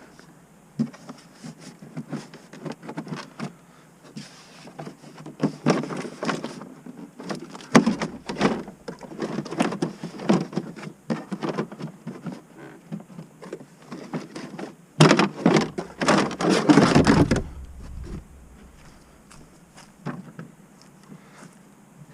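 Irregular knocks, clicks and rattles of parts being handled and taken off an ATV by hand, with a louder stretch of rattling and rubbing about fifteen seconds in.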